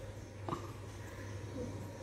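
Quiet room tone in a pause between a child's words: a steady low hum, with one faint short tick about half a second in.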